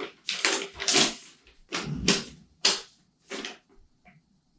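Packaging being handled as a box is opened and unpacked: six or seven short scraping, rustling sounds, stopping about three and a half seconds in.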